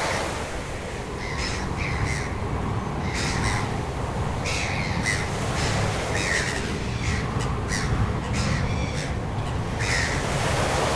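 Birds giving short, harsh calls again and again, at irregular intervals, over a steady low rumble.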